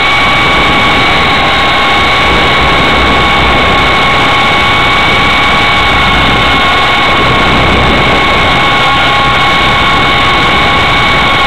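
Blade CX2 coaxial electric RC helicopter's motors and rotors, heard up close from the camera mounted on it: a loud, steady high motor whine with rotor wash noise, holding one pitch.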